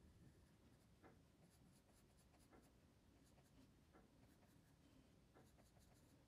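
Graphite pencil scratching on drawing paper, faint, in short irregular strokes.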